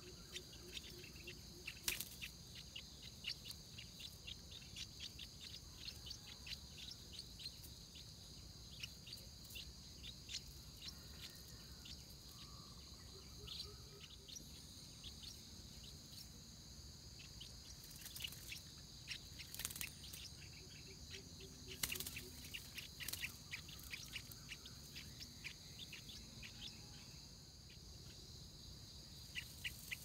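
Stripe-throated bulbul chicks in the nest giving short, sharp chirps and ticks, a few louder ones about two seconds in and again two-thirds of the way through, over a steady high-pitched drone of insects.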